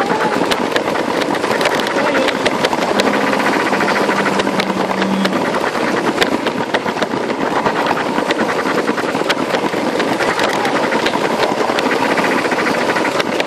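Lego 9V Metroliner train (set 4558) running around its track: the small electric motor whirring steadily, with a fast, uneven clatter of clicks from the wheels on the rails.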